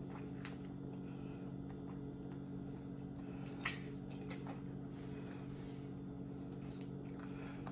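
Steady low electrical or appliance hum of a quiet room, with a few faint clicks and one short knock about three and a half seconds in.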